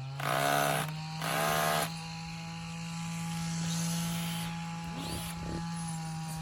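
Cordless drill motor running at a steady speed, driving a screw into a wooden gate. Near the start, two short loud cries about a second apart sound over it.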